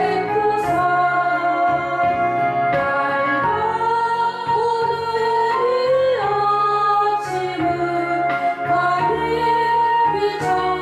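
A woman singing a gospel hymn in long held notes over steady instrumental accompaniment.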